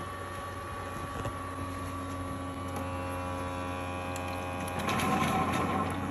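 Ecovacs Deebot X1 Omni base station running its pump and motor with a steady hum, drawing dirty water from the robot into the station's dirty-water tank. The sound grows louder and rougher for about a second near the end.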